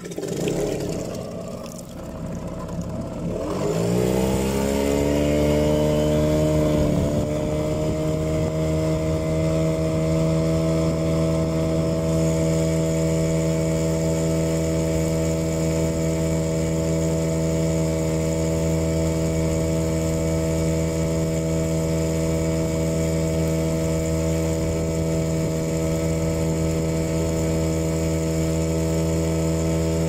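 An engine speeds up over a few seconds, runs at a single steady pitch, then drops away at the very end.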